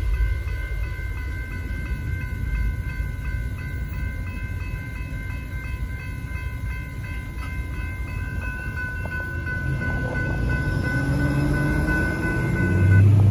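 Railroad grade-crossing warning bell ringing with rapid repeated strikes over the low rumble of a passing freight train. The bell stops near the end as a car engine speeds up to cross.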